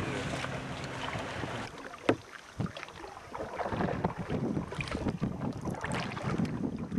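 Water lapping against a canoe and wind on the microphone, with two sharp knocks about two seconds in; the wind noise grows rougher from about halfway.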